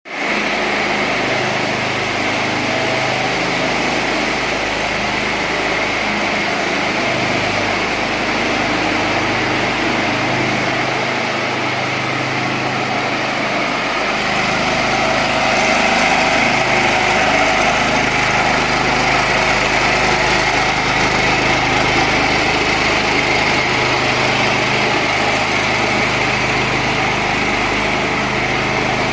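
Small petrol engine of a ride-on power trowel running steadily, its rotating blades smoothing a fresh concrete slab to a polished finish.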